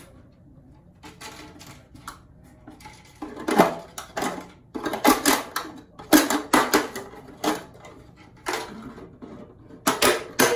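Cut-down plastic soda bottle being handled and worked into the hair, crinkling and clicking in irregular bursts that get busier about three seconds in.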